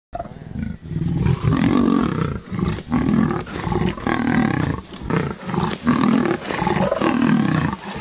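Big cats growling and snarling: a pride of lions mobbing a cornered leopard, with rough, low growls coming in quick succession, about two a second.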